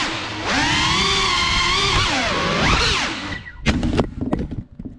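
GEPRC Cinelog 35 cinewhoop drone's brushless motors whining, the pitch rising and falling with the throttle, then dying away as the drone crashes: two sharp impacts about three and a half seconds in, followed by a few lighter knocks.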